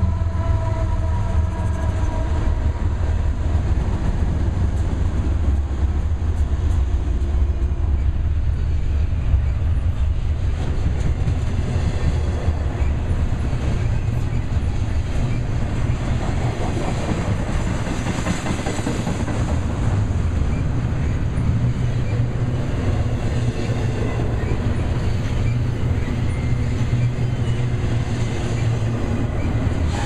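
Long double-stack intermodal freight train passing. At the start the trailing GE diesel locomotives go by, their engine whine fading within the first few seconds. The rest is the steady rumble and clatter of the stack cars' wheels on the rails.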